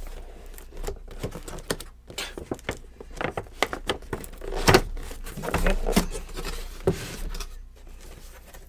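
Cardboard box being opened by hand: irregular scraping, tapping and rustling of the cardboard flaps, with one sharper snap about halfway through.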